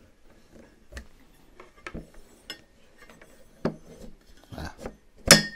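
Handling knocks, clicks and scrapes from a Starlink dish's mast being worked into its mount, about half a dozen separate knocks with a sharp, loud knock near the end that rings briefly.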